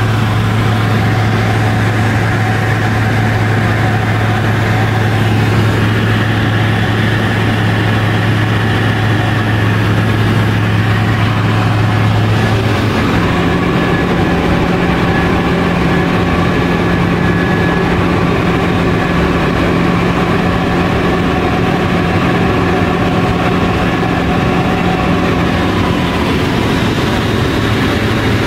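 Tecnam P2002 Sierra's Rotax 912 flat-four engine and propeller droning steadily in cruise, heard inside the cockpit. The drone's strongest tone changes abruptly about halfway through.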